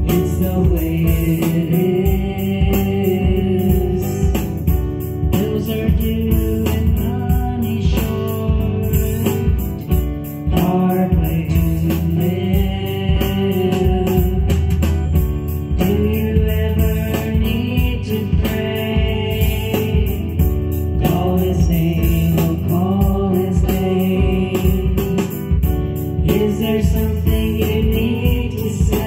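Christian song with singing over a steady beat and instrumental backing.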